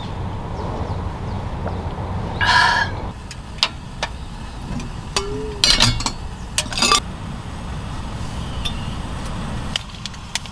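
Clinks of a small metal kettle's wire handle and lid as it is handled on a portable gas stove: several sharp clinks in the middle, over a steady low rumble. A brief bird-like call sounds about two and a half seconds in.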